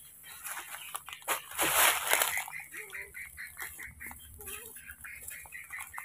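Dry leaf litter crackling and crunching underfoot, loudest about a second and a half in. After that comes a fast run of short, high animal calls, about five a second, with a couple of short lower calls mixed in.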